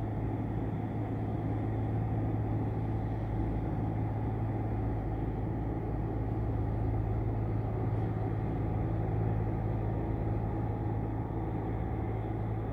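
A machine running steadily: a low, even hum with a rumble beneath it, unchanging throughout.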